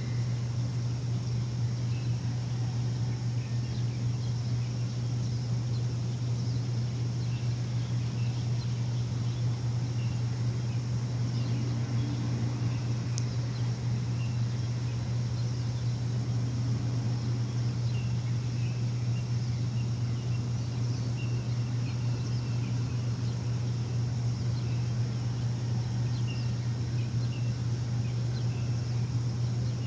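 A steady low machine hum, with short bird chirps scattered over it, coming more often in the second half.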